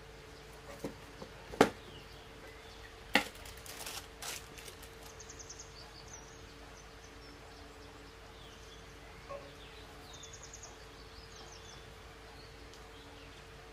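Handling of a cardboard shoe box and a sneaker: two sharp knocks, about a second and a half apart, then light clicks and paper rustle. A low hum sits underneath, with a few faint high chirps.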